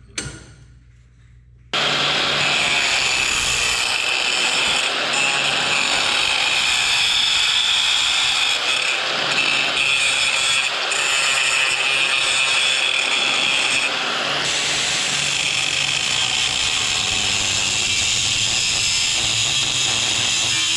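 Electric angle grinder with a thin cut-off disc, starting up about two seconds in and then running steadily under load as it cuts through the metal of a fuel pump sending unit, with a faint steady whine under the grinding noise. Two short knocks come just before it starts.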